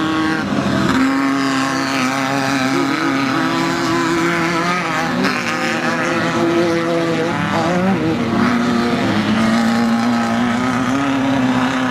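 Off-road race buggy engines running hard at high revs. Their pitch mostly holds steady, with brief dips and climbs.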